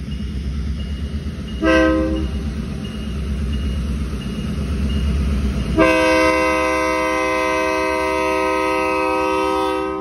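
Terminal Railroad Association diesel locomotives sounding their multi-note air horn: a short blast about two seconds in, then a long blast from about six seconds that cuts off at the end. The low rumble of the locomotives' diesel engines runs underneath.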